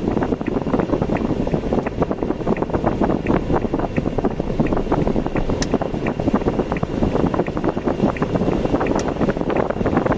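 Car driving on a road: a steady rumble of road and engine noise, crowded with small rattles and clicks, with faint regular ticks about every half second.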